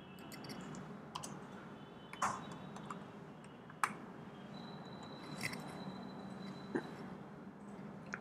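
Faint, scattered keystrokes on a computer keyboard: about seven separate sharp clicks, irregularly spaced about a second apart, over low background hiss.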